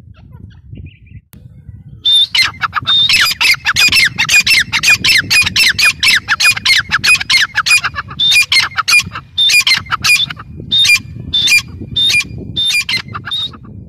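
Grey francolin calling. About two seconds in, a loud, harsh call begins as a rapid run of repeated notes, about three or four a second. Later in the run the notes come in shorter, spaced groups, and the calling stops just before the end.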